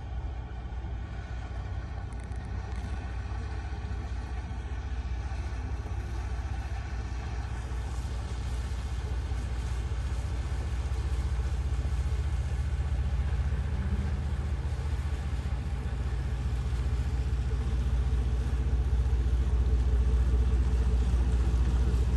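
A fishing boat's engine runs with a low, steady rumble. It grows gradually louder as the boat comes in at slow speed and draws near.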